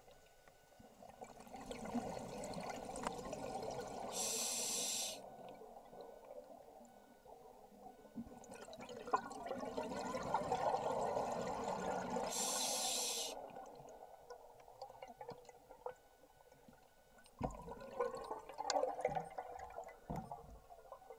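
Scuba diver breathing through a regulator underwater: two long bubbly exhalations, each ending with a short high hiss, then fainter bubbling with a few clicks near the end.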